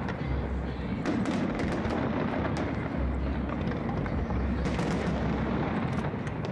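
Aerial fireworks shells bursting one after another, booms overlapping into a continuous rumble with sharp crackles scattered through it.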